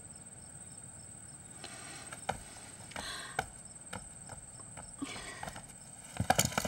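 Faint, steady insect chirping, like crickets, with a few soft clicks. Near the end a quick run of louder knocks starts.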